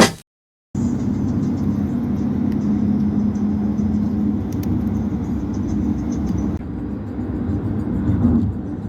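Steady low rumble of a car driving, with a faint hum; the sound shifts abruptly about two-thirds of the way through.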